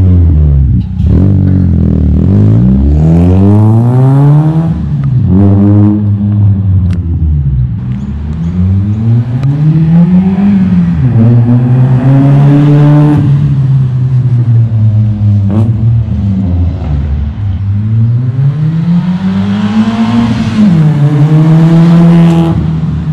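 Mitsubishi Lancer CE's four-cylinder engine running through a cannon-style exhaust with the resonator deleted. The car accelerates hard past the listener several times, its pitch climbing with the revs and dropping back at each gear change.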